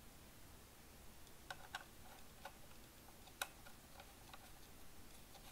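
Faint, scattered small clicks and ticks as an external antenna is screwed onto the radio transmitter's antenna connector, the loudest about three and a half seconds in.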